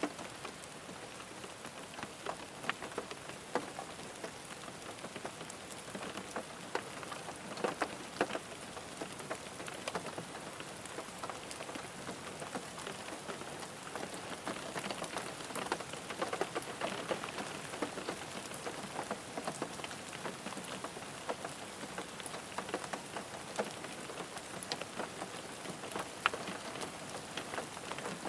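Steady rain falling on a car, with many separate drops ticking and pattering over an even hiss.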